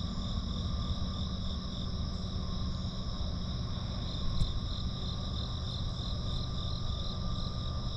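Steady insect chorus at dawn: an even, high-pitched trilling that holds on two pitches throughout, over a low steady rumble.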